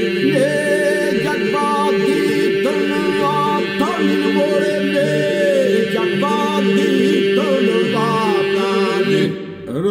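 Men's group singing an Albanian folk song a cappella in polyphonic style: a steady held drone under wavering, ornamented melody lines, with a short break between phrases near the end.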